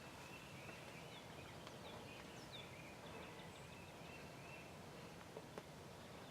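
Faint wild turkey yelping: a run of evenly spaced yelps over quiet woods, with a few thin bird chirps and two light clicks near the end.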